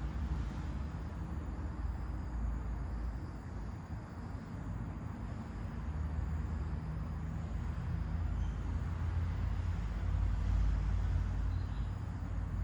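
Wind gusting over the microphone, a low, uneven rumble that swells about two-thirds of the way through, with faint bird chirps above it.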